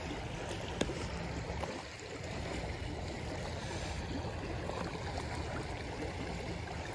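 Shallow creek flowing steadily over a rocky riffle, with one sharp click a little under a second in.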